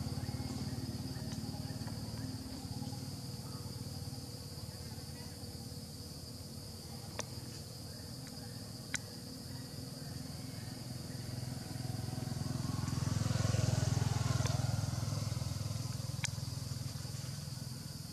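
Outdoor forest ambience: a steady high insect drone over a low rumble that swells and fades about two-thirds of the way through, with a few sharp clicks.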